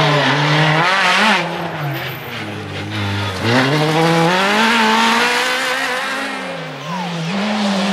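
Renault Clio rally car at full throttle, its engine revving up and down through gear changes. The revs drop sharply about three and a half seconds in and climb again as it pulls away, then dip once more near the end.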